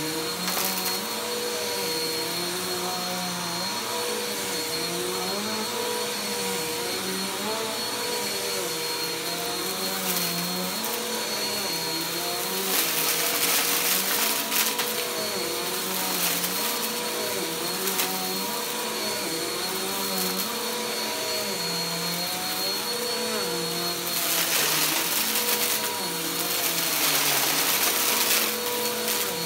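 Bagless upright vacuum cleaner running on carpet, its motor whine wavering up and down as it is pushed back and forth. It gets louder and hissier with crunching and rattling as it sucks up crumbs and debris, once about halfway through and again near the end.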